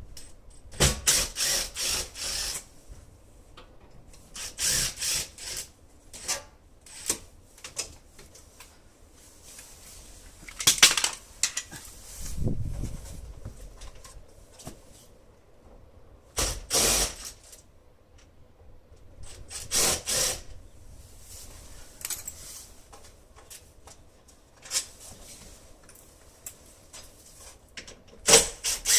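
Tool work on a front-door lock that is being replaced: short bursts of about a second each, six or so spread out, with quieter handling sounds between them.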